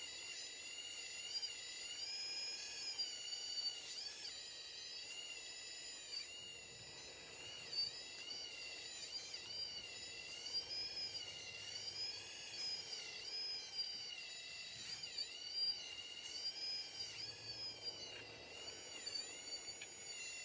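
Electric motors of a Volvo-branded radio-controlled model excavator whining, the pitch rising and falling continuously as the boom, arm and bucket are worked, with a few short clicks.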